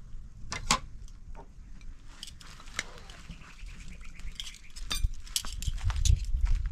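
Scattered light clinks and knocks of utensils against dishes, over a low rumble.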